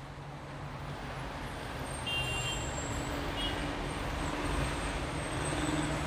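Street traffic noise fading in: a steady low rumble of vehicles, with a couple of brief faint high tones about two and three and a half seconds in.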